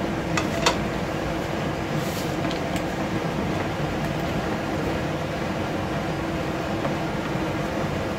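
Wooden spatula stirring thick halwa in a pan, with a couple of light knocks against the pan about half a second in, over a steady fan-like hum.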